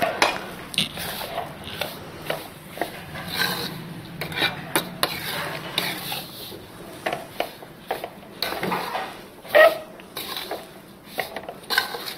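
A perforated metal spatula stirs and scrapes a crumbly flour-and-khoya mixture around a metal kadhai, with irregular scrapes and clinks of metal on metal.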